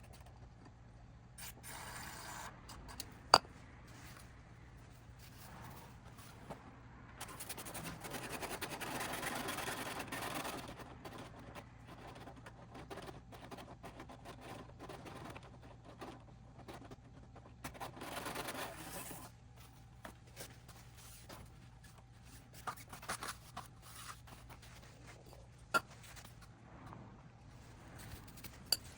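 Hands-on workshop handling noises: bursts of rubbing and scraping, one sharp click about three seconds in and a couple of lighter clicks near the end, over a steady low hum.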